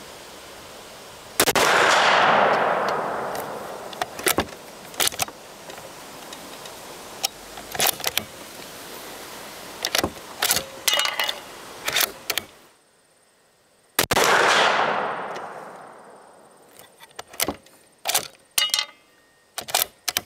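Two shots from a Savage 220 20-gauge bolt-action shotgun firing Browning BXS sabot slugs, about a second and a half in and again about fourteen seconds in, each followed by a long echo fading over about two seconds. Between and after the shots come short runs of sharp metallic clicks and clacks from the bolt being worked, over a steady wind hiss that drops away shortly before the second shot.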